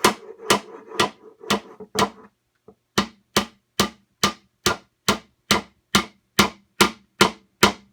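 Hammer driving a nail into the wooden finger-jointed corner of a Langstroth hive body. The blows are sharp and evenly spaced, about two a second. There is a short pause after about two seconds, then a slightly quicker run of about a dozen strikes.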